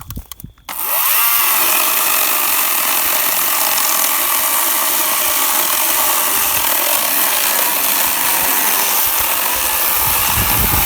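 WEN 40V Max cordless electric chainsaw spinning up about a second in, then running steadily as it cuts through hard mesquite wood.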